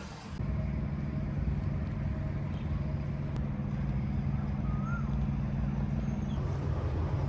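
Steady low engine hum of passing motor traffic, with a thin high whine over the first few seconds and a single short bird chirp about five seconds in.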